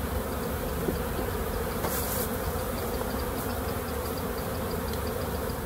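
Many honeybees buzzing in a steady hum around an open hive: a colony just shaken off its old combs in a shook swarm, still flying and agitated.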